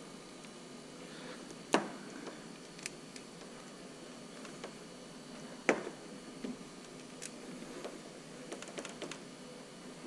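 Hands fitting a solenoid onto a PolarStar HPA engine and plugging in its small wiring connectors: two sharp clicks, one about two seconds in and one near six seconds, with fainter ticks and rustling between.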